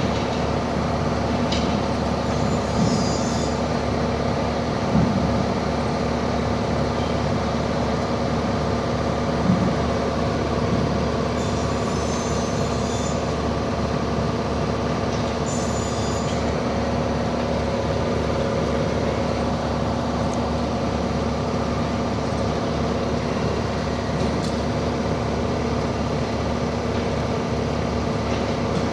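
CNC router running with a steady mechanical hum, unchanging throughout, with a few faint brief high-pitched clicks.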